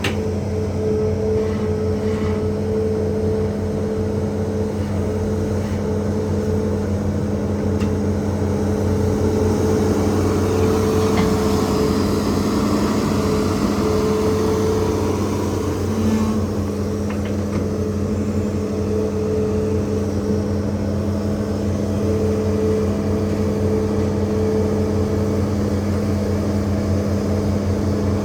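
Hitachi ZAXIS 200 hydraulic excavator's diesel engine running at a steady pitch, with a swell of harsher higher-pitched noise around the middle as the machine works.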